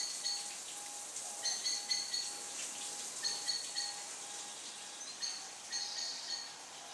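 Small songbirds chirping in short bursts of high notes, with a faint low note pulsing evenly about two to three times a second underneath.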